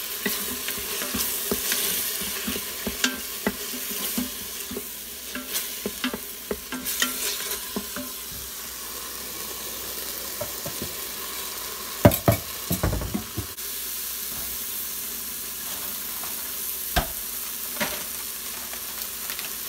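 Onion and tomato masala sizzling in the stainless steel inner pot of an Instant Pot on sauté, stirred with a wooden spoon that scrapes and taps against the pot. A few louder knocks of the spoon come about twelve seconds in.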